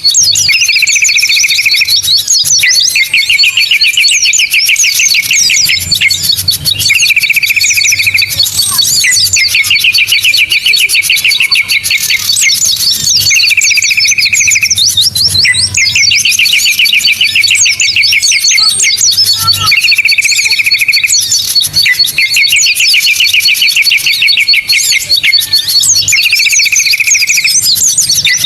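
Bird-lure recording of several small birds calling together: loud, rapid chirps and twitters over a fast, steady ticking call. A short buzzy trill comes back about every six seconds, as the track loops.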